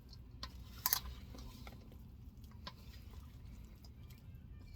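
Light kitchen handling sounds: scattered soft clicks of utensils and dishes, with one sharper clink about a second in, over a low steady hum.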